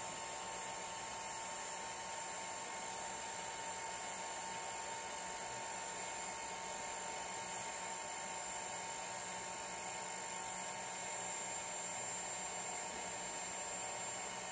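Hot-air rework gun blowing steadily, a constant airy hiss with a thin high whine, as it heats the solder joints of a router's power switch to desolder it from the circuit board.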